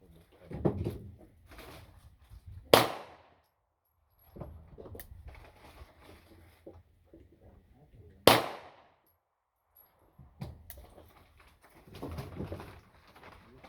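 Gunshots at an outdoor range: two loud shots about five and a half seconds apart, with fainter cracks from other shots in between. Low rumbling noise is heard near the start and near the end.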